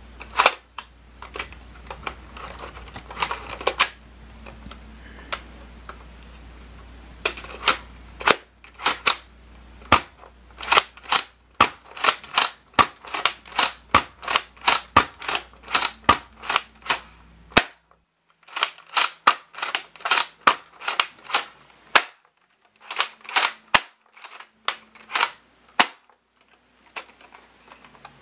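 Hard plastic clicks and clacks from a Nerf blaster's mechanism being worked over and over without darts, sharp and quick, often several in a row with short pauses between runs.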